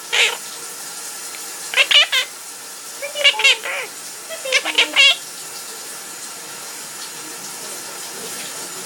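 Pet parrot singing in four short warbling phrases, one after another over the first five seconds, then falling quiet. A steady hiss like running water continues underneath throughout.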